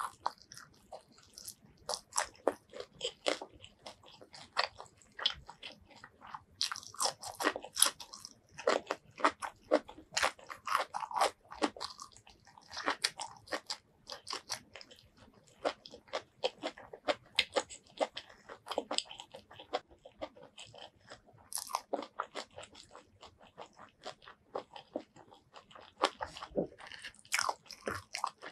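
Close-miked eating of fried chicken: many short, sharp crunching bites and chewing, irregular throughout.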